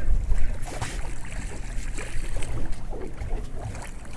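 Wind rumbling on the microphone and water against a small boat's hull, with scattered short knocks.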